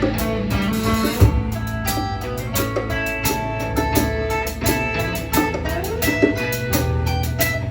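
A live rock band playing an instrumental passage with no singing: guitar notes over a drum kit and low bass notes.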